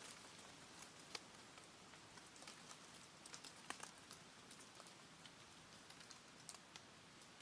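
Wood campfire crackling faintly: scattered sharp pops and ticks at irregular intervals, a few a second at most, over near-silent background.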